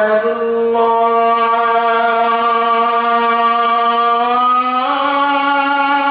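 A voice chanting in long held notes, each held steady for several seconds, with a change of pitch near the start and a step up to a higher note about five seconds in.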